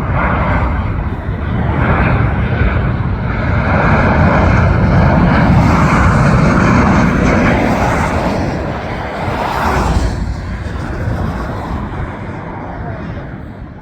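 Boeing 737-800 airliner passing low overhead as it comes in to land. Its jet engine noise swells to a peak about halfway through, then fades away.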